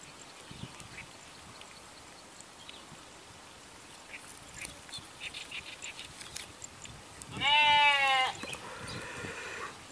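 A single loud animal call, about a second long and slightly falling in pitch, comes about seven seconds in and is followed by a fainter, drawn-out call. Faint scattered ticks come before it.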